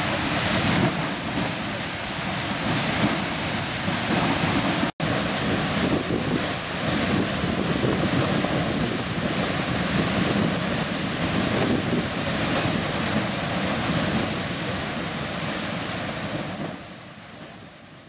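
Beehive Geyser erupting: the steady rushing hiss of its water-and-steam column jetting from the cone. It cuts out for an instant about five seconds in and fades away near the end.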